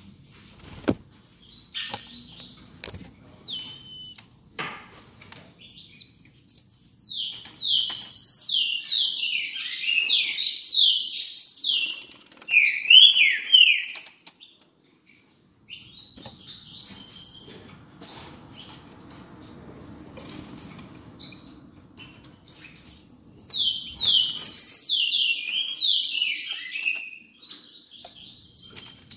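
Caged songbirds, a green-winged saltator fledgling and its female saffron finch foster mother, chirping: two long runs of rapid, sharp, falling chirps with scattered single chirps between them. Short wing flutters and knocks on the perches come in between.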